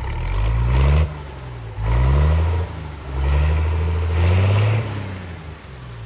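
Massey Ferguson 38 combine harvester's engine revving up three times, each rise in pitch dropping off sharply before settling back to a steadier run.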